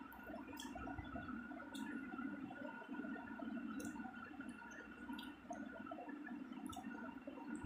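Eating rice by hand: soft, wet, squishy sounds of fingers mixing rice on a plate and of chewing, with a few short sharp clicks, over a steady low hum.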